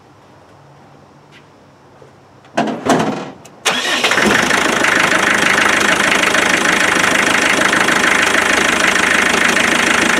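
Land Rover Defender 90's 2.5-litre naturally aspirated diesel engine being started about two and a half seconds in: a second of cranking, then it catches and runs steadily at idle.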